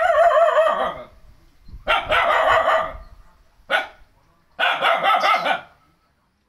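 Dog barking in four drawn-out, wavering calls, each about a second long except a short third one.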